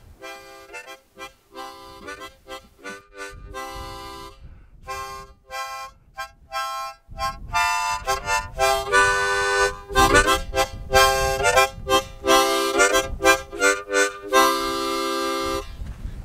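Background music: a melody of short, quickly changing notes, growing louder and fuller with a low end added about seven seconds in.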